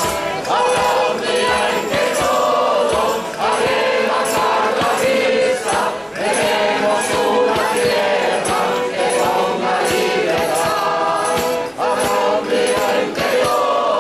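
A large amateur choir singing a song in phrases, with a small street band of violin and bass drum keeping a steady beat.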